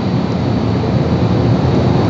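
First-generation MTR Metro-Cammell M-Train electric multiple unit pulling out of the station and running past close by, with a loud, steady rumble of wheels on the rails and running gear.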